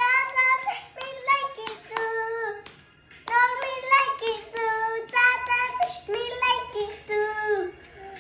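A young boy singing unaccompanied, holding long notes, with a short break about three seconds in.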